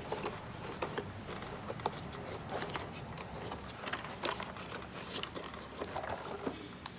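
Cardboard box being handled and turned over by hand: scattered light knocks, taps and rustles.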